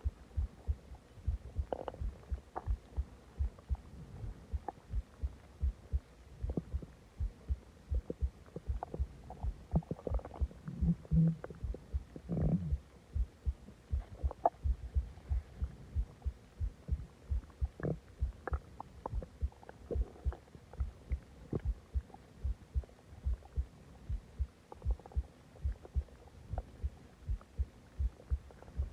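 Close-up stomach growling and gurgling after a big meal and a soda: a steady low thumping at about two beats a second, with short squeaky gurgles near the middle.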